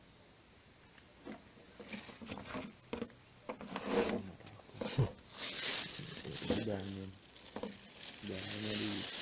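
Thin plastic bag rustling and crinkling in a series of short bursts as it is handled, starting about a second in. A man's low voice is heard briefly twice in the second half.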